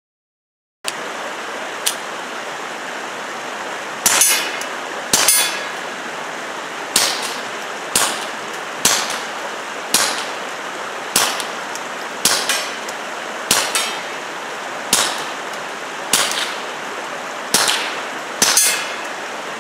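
Taurus TX22 .22 LR pistol fired through a fuel-filter suppressor with standard, non-subsonic ammunition: about thirteen shots at a steady pace of roughly one a second, starting about four seconds in.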